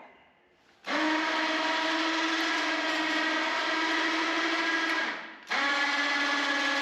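Winch motor on a homemade bandsaw mill running with a steady whine that starts about a second in, stops for half a second near the end and starts again.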